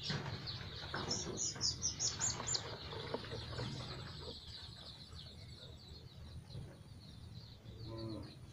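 Young chicks peeping rapidly and continuously, with a run of louder, higher peeps between about one and two and a half seconds in.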